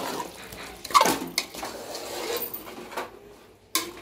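A metal spoon stirring raw, masala-coated chicken pieces in an aluminium pressure cooker, scraping and knocking against the pot, with one short loud sound about a second in.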